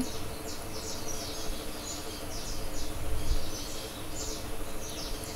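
Pen scratching out handwriting in short quick strokes, a few a second, over a faint steady hum.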